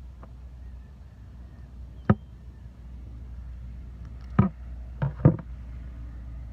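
Knife chopping at a sunfish's fins against a hard surface: a single sharp knock, then three more in quick succession, over a steady low hum.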